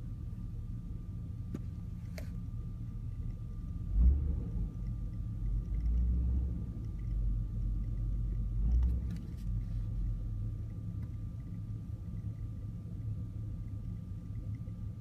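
Car engine idling roughly, a steady low hum with a faint steady whine above it and a few light clicks; the owner suspects a vacuum leak because the long-term fuel trims on both banks read high. About four seconds in a sudden heavier low rumble starts and lasts several seconds.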